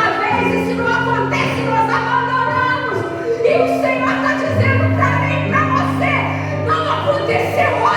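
Worship music with singing over long-held low notes that change every second or two.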